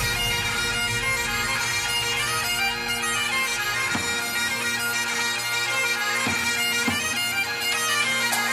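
Bagpipe music: a tune played over steady, unbroken drones.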